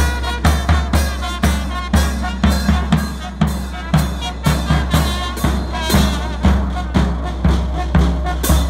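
Mexican village brass band playing, led by a bass drum and cymbals beating a steady rhythm of about two strikes a second, with sousaphone, trumpet and trombone underneath.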